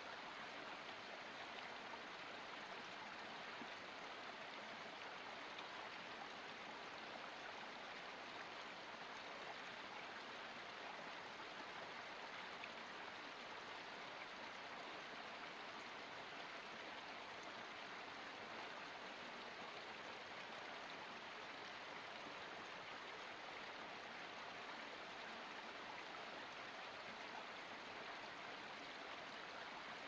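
Small forest spring trickling and splashing down a cascade of mossy rocks: a steady, even rush of water.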